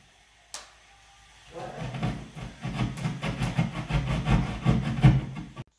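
Hand jab saw sawing through drywall in quick back-and-forth strokes. The sawing starts about a second and a half in and stops abruptly near the end.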